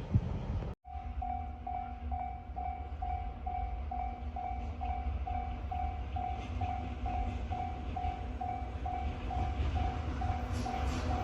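Japanese level-crossing warning bell ringing in an even beat of about two strikes a second, over the steady low rumble of a freight train running by. A brief dropout about a second in marks a splice between clips.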